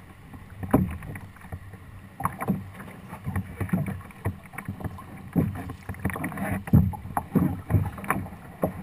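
Choppy water slapping and splashing against a plastic Hobie Outback kayak hull, with irregular knocks and splashes as a fish is brought alongside and lifted from the water.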